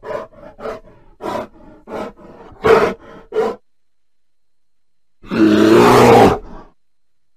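A bear giving a quick series of short grunts, about two a second, the last two louder, then after a pause one loud roar lasting over a second.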